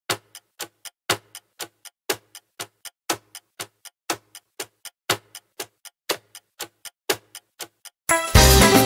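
Clock-tick countdown timer sound effect: even ticks about four a second, with a louder tick every second. Near the end the ticking stops and loud music with a steady beat comes in.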